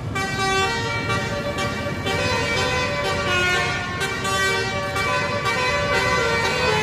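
Tour bus basuri horn, the multi-tone musical 'telolet' horn, playing a tune of held notes that change pitch every fraction of a second, over a low rumble of vehicle noise.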